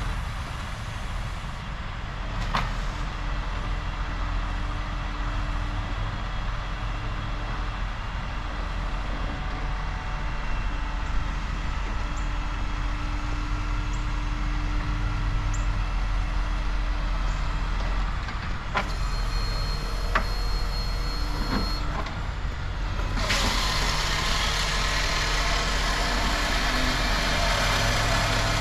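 Truck engine running steadily with a constant low hum, with a few sharp clicks; about two-thirds of the way through, a loud steady hiss sets in over it.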